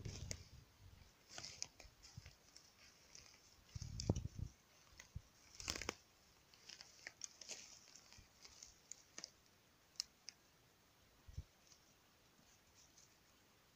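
Footsteps crunching over dry forest litter of twigs, pine needles and leaves: scattered faint crackles and snaps, with a few dull low thumps.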